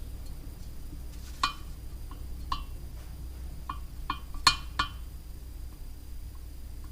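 Light metallic clinks with a short ring, about seven taps over a few seconds, the loudest about four and a half seconds in: an engine valve being slid in its guide and tapped down onto its seat in a bare cylinder head, checking for binding.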